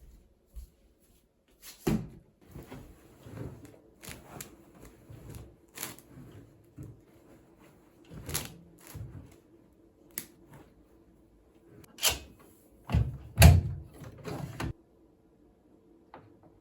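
Household handling sounds: a run of knocks, clicks and rustles, like drawers and cupboard doors and objects being moved, with a few heavier thumps about three quarters of the way through.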